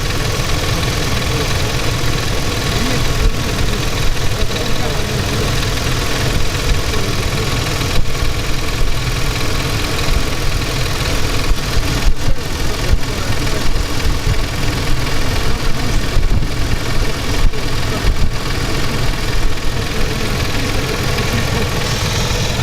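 Mercedes-Benz M112 V6 petrol engine running steadily.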